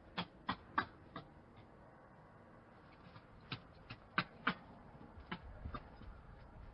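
Hamadryas baboons lip-smacking while grooming: short, sharp smacking clicks, about three a second, in two runs of four, with a few fainter ones near the end.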